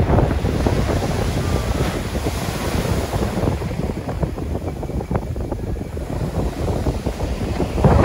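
Waves breaking and surf washing up a pebble beach, with wind buffeting the microphone.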